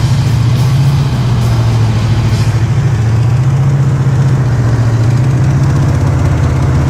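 Chevrolet Chevelle engine running steadily at idle on a newly fitted fuel pump, still not running right.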